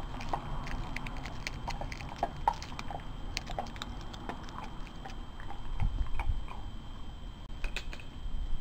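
Cairn terrier chewing raw chicken thighs on the bone: a run of irregular, sharp, wet clicks and smacks from teeth and jaws.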